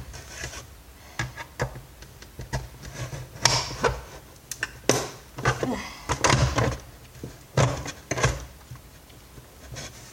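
Hand tools working at a vacuum cleaner's plastic housing to free a tightly fixed part: irregular knocks, clunks and scrapes.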